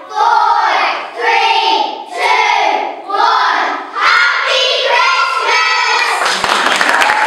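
A group of children singing together in short, loud phrases, about one a second. Audience applause breaks in about six seconds in.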